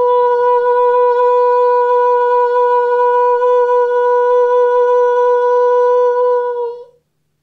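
A man's voice holding one high, steady note for about seven seconds, which dips slightly in pitch as it ends. It is a wordless call being tried out as a sound for a ritual.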